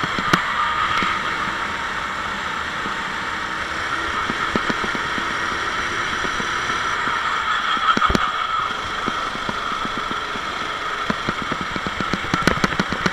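Sodi SR4 rental kart's four-stroke engine running at racing speed, heard onboard, with its note wavering slightly through the corners and occasional short knocks, a sharp one about two-thirds of the way through.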